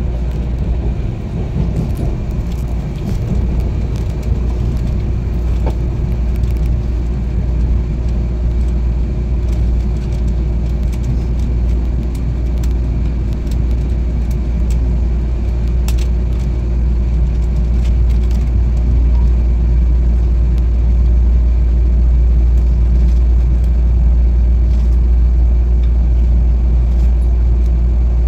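A train running steadily: a continuous deep rumble with a constant hum, growing slightly louder toward the end, with a few faint clicks.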